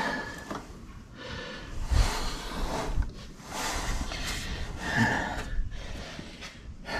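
A man breathing hard with effort while working under a car's dashboard, with several loud, noisy exhales at irregular intervals.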